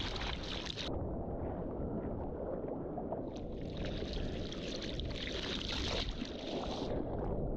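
Wind and water noise with a heavy low rumble of wind on the microphone; a higher hiss cuts out about a second in and comes back for several seconds.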